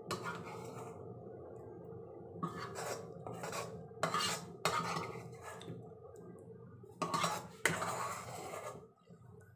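A spoon scraping and clinking against a non-stick pan in a run of short scrapes, getting the last of the fried tempeh out of the pan and into a glass container. A steady low hum sits underneath.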